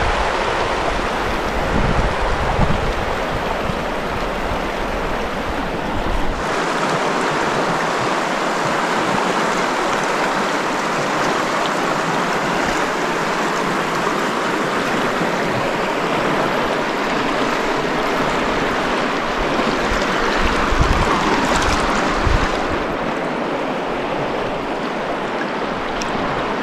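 Fast-flowing river water rushing in a steady, even hiss. For the first six seconds or so wind buffets the microphone with a low rumble, which stops abruptly.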